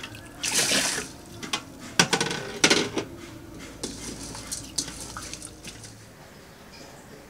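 Rice being washed in an aluminium pot: water splashing in and hands stirring the grains, with sharp knocks of the cup and pots against each other about two and three seconds in, and lighter clatter before it quietens near the end.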